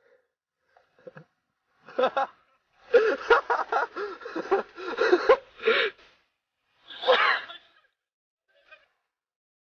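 A person laughing in rapid bursts, with gasps, and a higher cry near the end.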